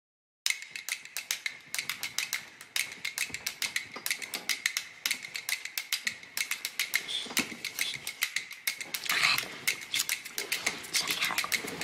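A man's lips kissing a woman's cheek over and over: quick, irregular smacking kisses, several a second, with breathing mixed in around the two-thirds mark.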